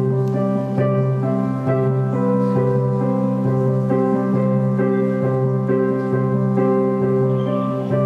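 Live keyboard music: steady, held notes shifting in a repeating pattern over a sustained low note, with no drums.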